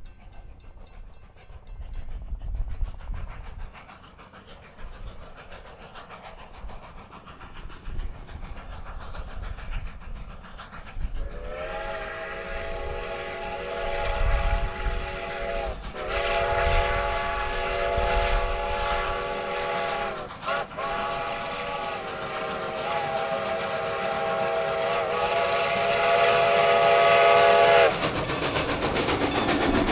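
Steam locomotive No. 90, a 2-10-0, approaching with a freight train and blowing its whistle for a grade crossing. The whistle sounds several tones together in a long, long, short, long pattern starting about a third of the way in, over the engine's low rumble, which grows louder as the train nears.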